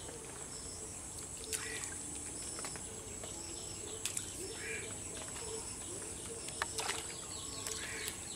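Quiet outdoor ambience: a steady high-pitched insect drone, with faint bird calls now and then and a few soft clicks.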